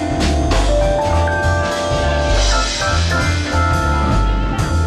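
Live band playing during a sound check: a moving bass line under drums, with held melodic notes on top.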